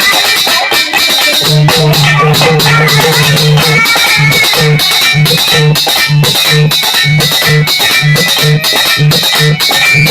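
Instrumental interlude of a Hindi bhajan: a plucked-string melody over a steady percussion beat, with a pulsing bass line coming in about a second and a half in.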